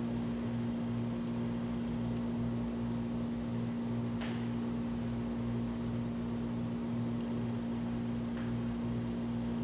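A steady low hum with a softer, deeper throb beneath it pulsing a little under twice a second.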